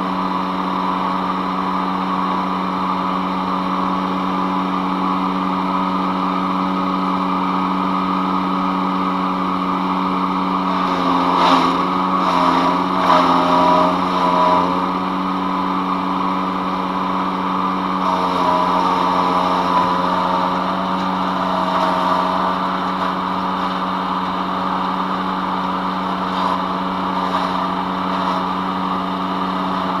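PowerKing PK0915 5-inch self-feed wood chipper, its gasoline engine running steadily. About eleven to fifteen seconds in, and more faintly around twenty seconds, the engine note dips briefly under load with bursts of crunching as branches are chipped.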